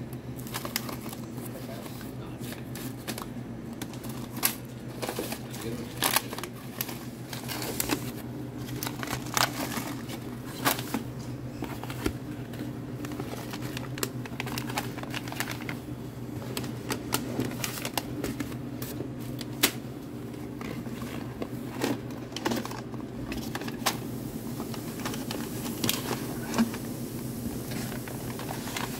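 Paper-based Smarties candy bags crinkling and tapping down on a counter as they are taken out of a cardboard box, irregular sharp rustles and clicks over a steady low hum.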